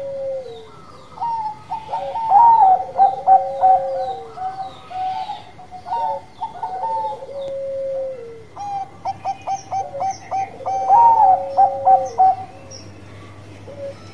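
Bangkok-type zebra dove (perkutut) cooing its bekur song. Each loud phrase is a quick run of staccato coos ending in a long drawn-out note. The loudest phrases come about two seconds in and again about ten seconds in, with softer coo phrases between them. Faint high chirps join in during the second half.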